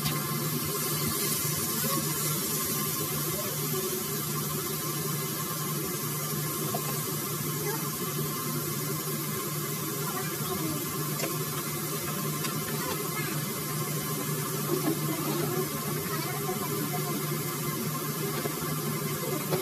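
Chunks of steak sizzling in a hot frying pan: a steady hiss with a low, even hum beneath it. The meat is searing in the fat it releases, with no oil added.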